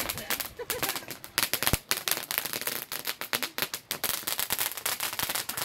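Ground fireworks crackling: a rapid, irregular run of small sharp pops.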